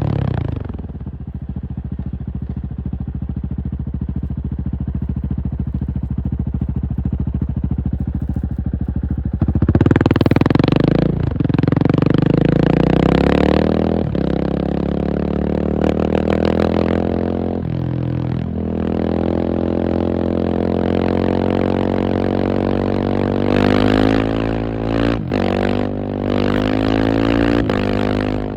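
KTM 690 SMC R's single-cylinder engine: it drops back in the first second and runs steadily at low revs for about nine seconds. It is then opened up, its pitch climbing and falling again and again as it is revved and eased off.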